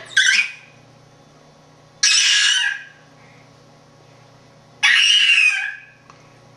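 Three loud, shrill, eagle-like screeches, each under a second long and coming every two to three seconds, with quiet in between.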